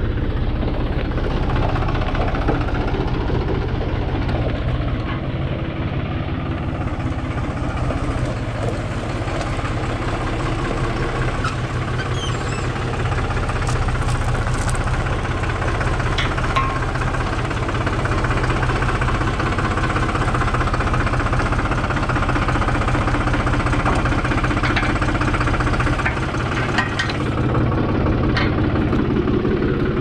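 Farm tractor engine running steadily at low revs, close by, while the tractor reverses up to a wagon tongue to hitch it.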